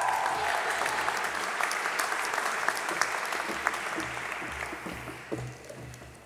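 Audience applauding, the clapping fading steadily until it has almost died away near the end.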